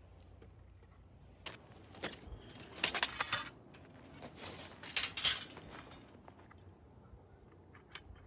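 Small hard objects clinking and rattling as they are handled, in two busy clusters with scattered single clicks.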